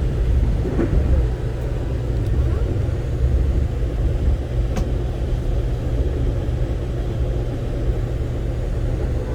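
Steady low rumble of an Amtrak passenger train running on the track, heard from aboard, with a single faint click about five seconds in.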